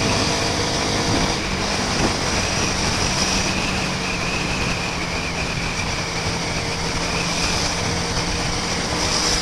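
Honda CB Twister 250F's single-cylinder engine running at a steady cruise, with wind and road noise.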